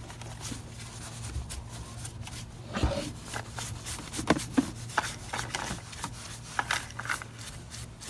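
Bristle brush scrubbing sand and dirt off the plastic housing of a canister vacuum cleaner in short, irregular strokes. A low steady hum runs underneath.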